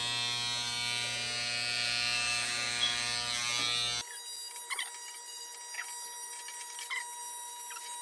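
Corded electric hair clippers buzzing steadily while cutting hair, stopping abruptly about four seconds in. After that only faint short high squeaks and a thin steady tone remain.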